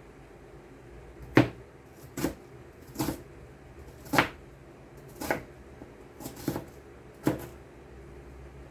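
Kitchen knife chopping onion on a cutting board: about seven slow, separate knocks roughly a second apart.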